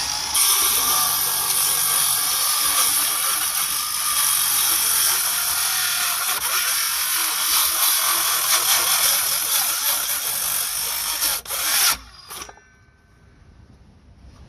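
Cordless power saw cutting into a wooden tree stump for about twelve seconds, then stopping abruptly, with a brief short burst just after.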